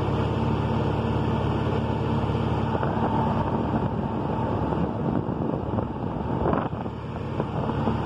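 Steady hum and rush of a Ford van's idling engine and its electric condenser fans running on high speed. The fans are held on high because the A/C pressure transducer is unplugged. A brief scrape about six and a half seconds in.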